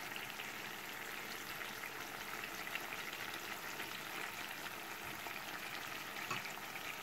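Flour-coated chicken breast fillets sizzling in oil in a frying pan, a steady sizzle with fine crackling; the fillets are nearly cooked after being braised in a little water.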